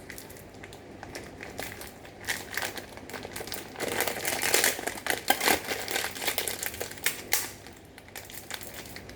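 Plastic biscuit packaging crinkling and rustling as biscuits are packed away, in irregular crackles that are busiest from about four seconds in until past seven seconds.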